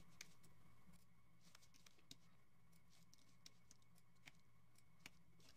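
Near silence: faint room hum with several scattered, faint clicks of a computer mouse and keyboard.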